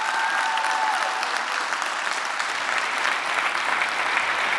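Audience applauding: steady, dense clapping from a large crowd.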